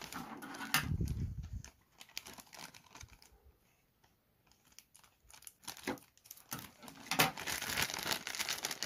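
Thin plastic toy bag crinkling as it is handled, snipped open with scissors and pulled apart, with the crinkling densest near the end. A dull bump about a second in.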